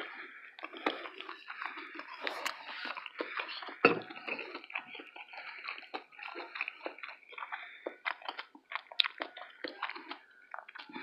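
Close-miked chewing of a vegetarian taco: an irregular run of wet mouth clicks and smacks, with one louder bite about four seconds in.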